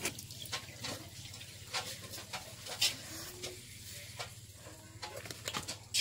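Someone eating noodles from a plate with a spoon: scattered small clicks of the spoon and the wet sounds of slurping and chewing.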